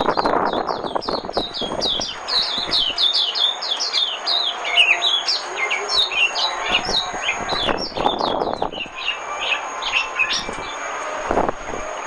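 White-eye (vành khuyên) singing a fast, high twittering run of short notes that rise and fall, the chattering 'líu' song used as a lure call. Bursts of lower rushing noise come and go underneath, near the start, in the middle and near the end.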